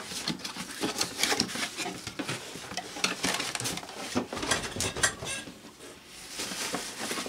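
Cardboard box being opened by hand, its top flap pulled up and worked loose: irregular rustling, scraping and light knocks of the cardboard, easing off briefly near the end.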